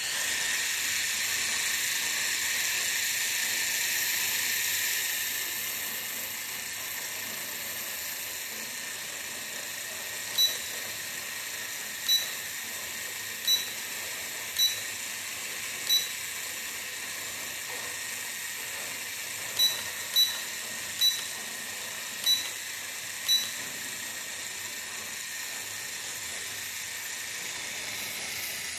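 Ten short electronic beeps in two runs of five from a DM99 toy quadcopter set, over a steady hiss that is louder for the first few seconds.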